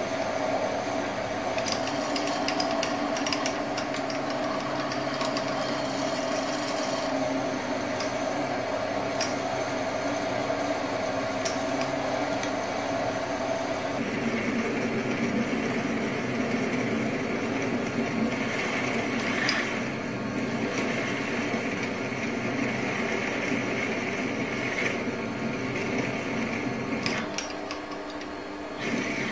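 Optimum D180 x 300 mini lathe running, its spindle turning a cutter in a drill chuck against a metal workpiece: a steady motor and gear whine with hum. The tone changes about halfway through.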